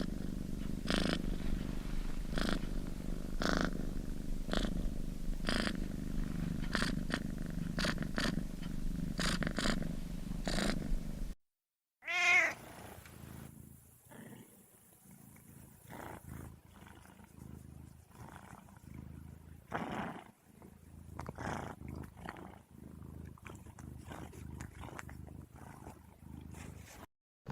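Domestic cat purring steadily, each breath marked as a louder pulse. After a short break a second, quieter recording begins with a brief gliding meow, then more soft purring.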